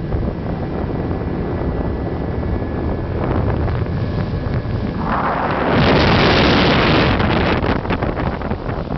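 Wind buffeting the microphone on a moving boat, over the steady drone of the boat's engine. About five seconds in, a louder rush of wind noise lasts about two seconds, then eases.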